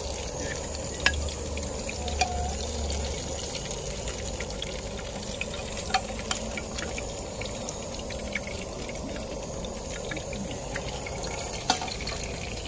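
Zucchini fritters frying in oil in a pan: a steady sizzle with a few scattered pops.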